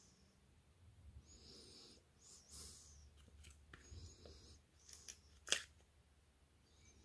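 Faint handling noises as hands work at a small cast cement block on newspaper: light rustles and scrapes, with one sharp click about five and a half seconds in.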